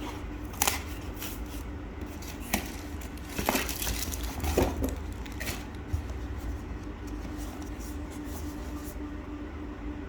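Handling noises: a few short rustles and clicks in the first six seconds over a steady low hum.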